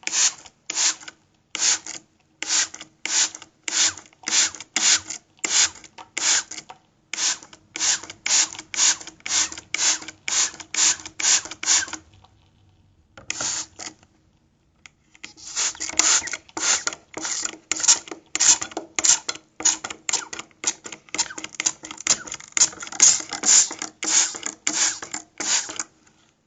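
Spray bottle squirted in a rapid series of short hissing sprays, about two a second. The sprays stop about twelve seconds in, a single one follows, then a faster run carries on to the end.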